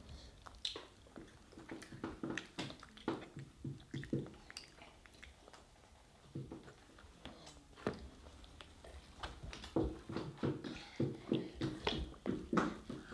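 A toddler's mouth sounds while eating: chewing and soft lip smacks in short scattered bursts, growing denser in the last few seconds as she sucks from a sippy cup.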